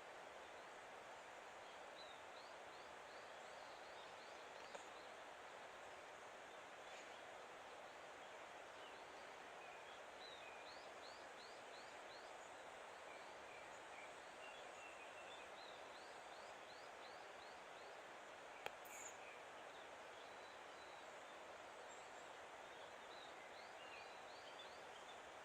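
Faint outdoor ambience with small birds singing: several quick series of short high chirps over a steady hiss, and one sharp click a little past the middle.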